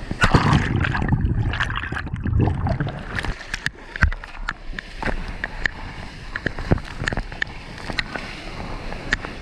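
Ocean water rushing and splashing around a surfboard as a surfer paddles into a breaking wave and rides its whitewash, with sharp crackling spatters of spray hitting the microphone. The rush is loudest in the first two seconds or so, then goes on as a steadier hiss of foam.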